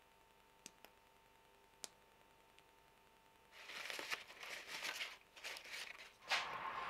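A few faint clicks, then paper towel rustling and crinkling as it is rubbed over a freshly glued knife blade, with a sharper crackle a little after six seconds in. The towel is wiping off epoxy squeezed out from the handle joint.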